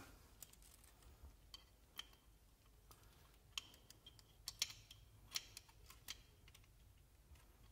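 Scattered faint, sharp clicks and taps of pistol parts being handled and fitted together by hand: the slide, barrel and recoil spring going back into place during reassembly.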